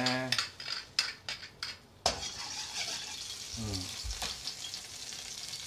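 Doubanjiang and gochujang frying in oil in a wok over a gas flame to bring out their aroma: a metal ladle clicks and scrapes against the wok for the first couple of seconds, then a steady sizzle sets in suddenly about two seconds in.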